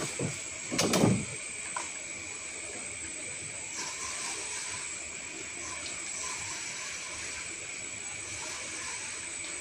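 Steady chorus of night insects, a constant shrill high-pitched drone, with a few short knocks and rustles in the first second and a half.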